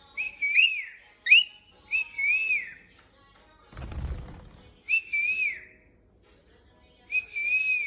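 A short wavering whistled phrase, rising and falling around one pitch, repeated five times in a cockatiel whistle-teaching session, with a single dull thump about four seconds in.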